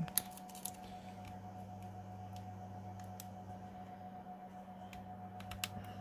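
Small plastic clicks and taps as fingers handle a laptop's DC power jack cable and push its connector into the motherboard socket, a cluster in the first second and a few more near the end, over a steady low hum.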